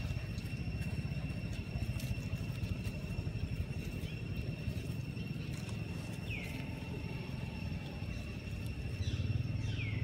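Outdoor ambience: a steady low rumble with a thin, steady high whine over it, and short, high, descending squeaks about six seconds in and again near the end.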